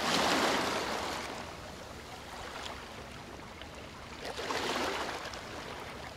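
Ocean surf: waves breaking in a rushing wash that swells at the start and again about four and a half seconds in.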